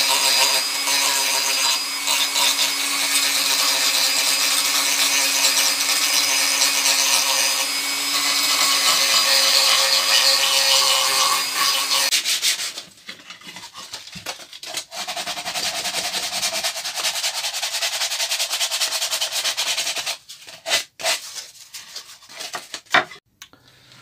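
A corded rotary tool with a small sanding bit runs steadily, sanding inside the routed grooves of a wooden plaque, and stops about halfway through. Hand sanding follows: a sanding pad rubbed back and forth over the wood in quick strokes, then a few light rubs.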